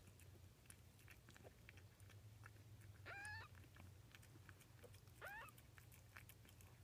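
Two short, faint, high mews from a five-day-old kitten, one about three seconds in and a rising one about two seconds later, over faint wet clicking from kittens suckling.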